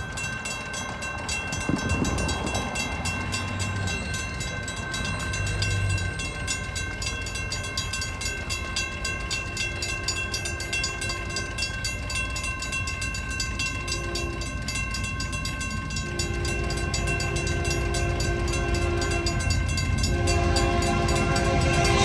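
Grade-crossing bell ringing steadily while an approaching Union Pacific locomotive's air horn sounds a series of blasts, a long one, a short one, then two long ones, over a growing low rumble of the train drawing near.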